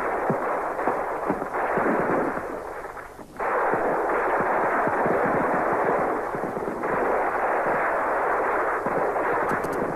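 Battle gunfire: many rapid rifle and machine-gun shots overlapping into a continuous crackle, muffled on an old film soundtrack. It breaks off briefly about three seconds in, then resumes.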